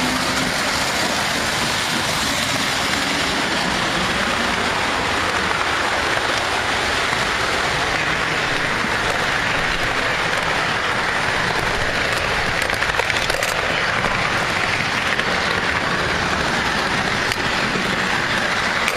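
O scale toy trains running on three-rail tinplate track: a steady, hissing rattle of metal wheels on the rails, heard close up from a car riding the train.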